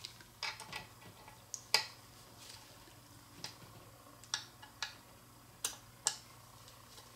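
An Allen wrench turning small M2.5 machine screws into a metal tilt plate, giving about nine light metallic clicks and ticks at irregular intervals as the screws are snugged down.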